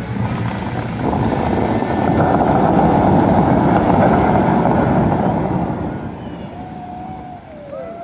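The Dubai Fountain's tall water jets rushing up and spray falling back onto the lake, a loud steady rush of water that swells about a second in and dies away after about five seconds. Near the end come a few short rising and falling calls.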